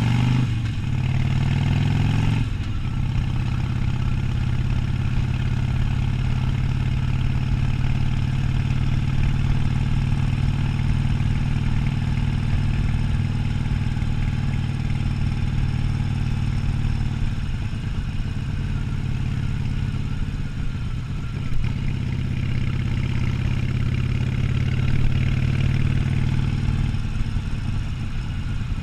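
Harley-Davidson Sportster 1200's air-cooled V-twin engine under way. It revs up over the first two seconds, drops sharply as it shifts up, then pulls steadily at cruising speed, easing off and back on a few times near the end.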